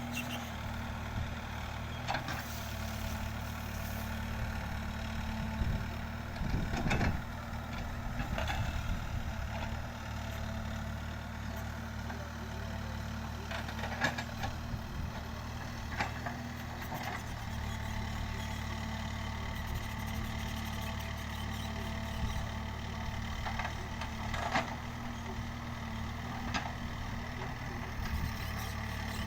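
Backhoe loader's diesel engine running steadily, with occasional short knocks and clanks.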